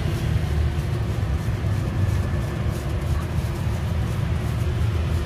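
Steady low rumble of roadside street noise, even throughout with no distinct events.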